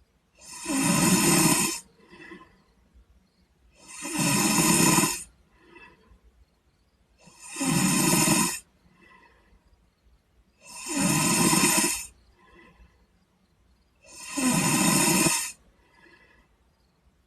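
A sleeping boy snoring: five loud, rasping snores on the in-breath, evenly spaced about every three and a half seconds, each followed by a much fainter out-breath.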